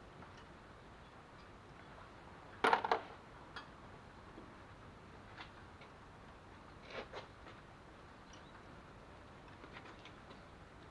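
Hand tools and metal parts clinking and clanking against an engine on a stand: a quick cluster of clanks nearly three seconds in, the loudest, another pair about seven seconds in, and light ticks between.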